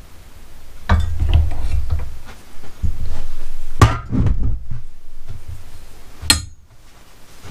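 Workshop handling noise of copper pipe in a steel bench vise being flattened: a handful of sharp metallic knocks and clanks with a low rumble between them, the loudest knock about four seconds in.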